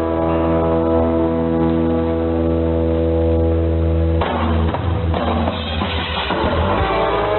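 Music received off an AM shortwave broadcast, muffled with nothing above about 4 kHz: a sustained held chord that gives way about four seconds in to a band with drums and guitar.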